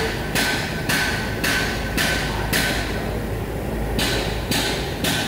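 Hammer blows with a short metallic ring, struck steadily about twice a second, with a pause of about a second partway through.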